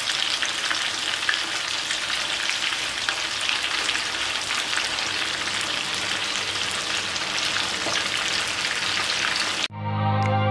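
Chicken pieces deep-frying in coconut oil, a dense steady sizzle full of fine crackles. Near the end it cuts off abruptly and music starts.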